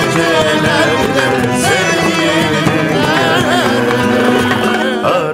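Turkish-style song continuing, with a wavering, ornamented melody line over instrumental accompaniment.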